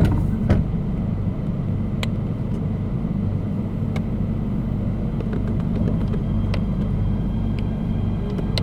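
MTR K-Train electric multiple unit standing with a steady low hum and rumble and a few faint clicks. Near the end the traction motors start a faint rising whine as the train begins to pull away.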